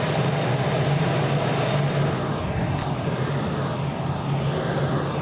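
Jet aircraft engines running steadily on an airfield apron: a continuous roar with a low hum and a constant high-pitched whine over it.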